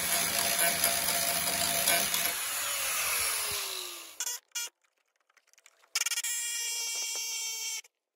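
A handheld power tool running hard with a crackle of fine ticks. It is released about two and a half seconds in, and its pitch falls as it spins down. After a pause it runs again steadily for about two seconds near the end.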